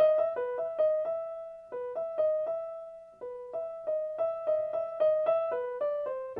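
Background music on solo piano: a slow melody of single struck notes in the middle register. Twice the notes ring out and fade before the melody picks up again.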